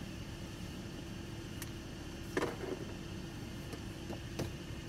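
Steady low rumble and hum of a stationary vehicle with its engine or fan running, heard from inside the cab. Faint ticks come here and there, with a short, louder knock about halfway through.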